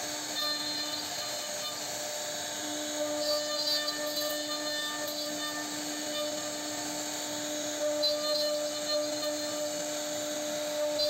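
CNC router spindle running at a steady pitch while its small carving bit cuts a relief pattern into wood. A rough cutting noise sits over the hum and grows sharper a few times, about three seconds in and again near eight seconds.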